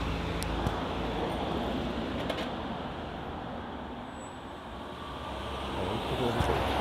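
Road traffic at a street crossing: vehicles running and passing by, easing off around the middle and building again near the end.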